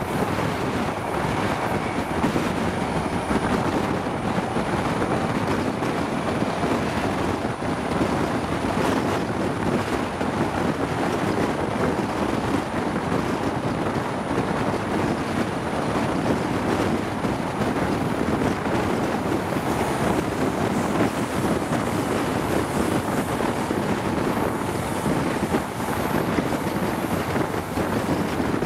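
Wind rushing over a microphone held out of a moving High Speed Train's window, mixed with the steady running noise of the train's wheels on the rails at speed.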